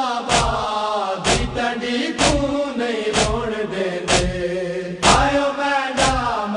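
Men chanting a Punjabi noha in a mourning lament, punctuated by loud, even chest-beating (matam) strokes from the mourners, about one strike a second.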